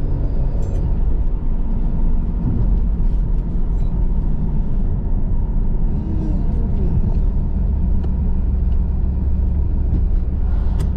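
1997 Pontiac Firebird driving at a steady speed: the engine runs as a steady low drone under road and tyre noise.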